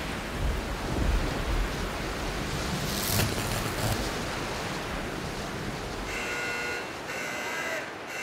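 Hailstorm: hail and rain pelting down in gusting wind, a steady rushing noise with a few sharper hits, the strongest about three seconds in.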